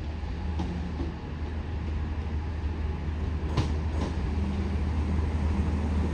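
NI Railways Class 3000 diesel multiple unit running with a steady low engine hum, with two short clicks about three and a half seconds in.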